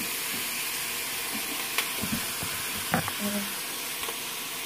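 Cubed pork shoulder sizzling as it browns in a hot pot: a steady frying hiss, with a few light clicks about two and three seconds in.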